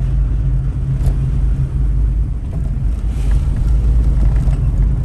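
Car interior road noise while driving: a steady low rumble of engine and tyres.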